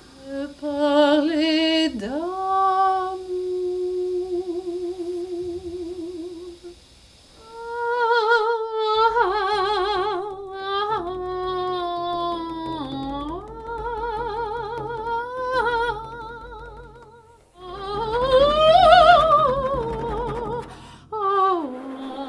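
Operatic female voice singing long, slow phrases with a wide vibrato, the first note held for several seconds and the line climbing to its highest note near the end. A low steady drone sits underneath from about nine seconds in.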